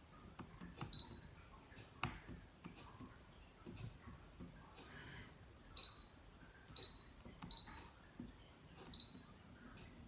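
Light stylus taps on a Brother ScanNCut cutting machine's touchscreen, several of them answered by the machine's short high key-press beep, about five beeps spread unevenly. The sharpest tap comes about two seconds in. All of it is faint.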